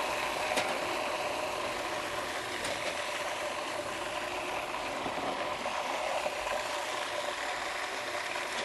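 Electric food processor running steadily on its last spin, its blade churning carrot soup with garlic and ginger into a smooth purée.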